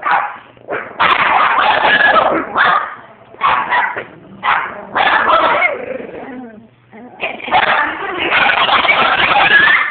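Several chihuahuas howling together in bouts, their high wavering voices breaking off and starting again. After a short lull about two-thirds of the way through, they settle into a longer, unbroken howl near the end.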